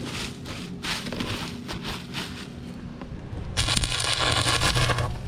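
Electric arc welding on the plow's steel, re-welding a broken weld: scattered short crackles and scrapes at first, then from about three and a half seconds in a steady crackling arc over an even hum for about a second and a half before it stops.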